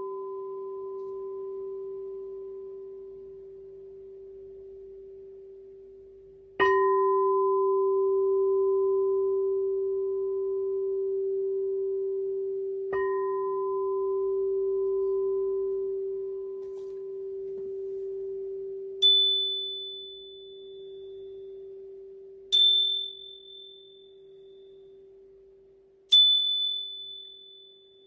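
Singing bowl struck three times, about six seconds apart, its low tone ringing on between strikes. Then a much higher metal tone is struck three times, each ring fading within about two seconds, while the low tone hums on beneath.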